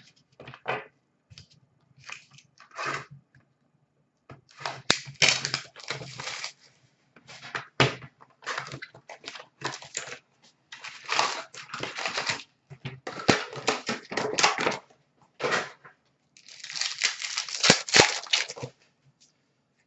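2019-20 Upper Deck Artifacts hockey card pack wrappers being torn open and crinkled, in several separate bursts of rustling, the longest and loudest near the end.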